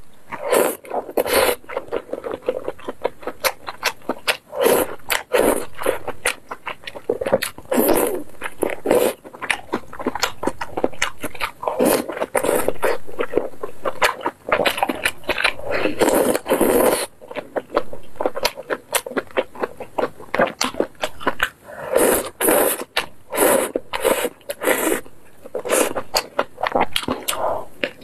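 Close-miked mouth sounds of eating malatang: wet chewing and lip-smacking, with occasional longer slurps of noodles and broth-soaked food.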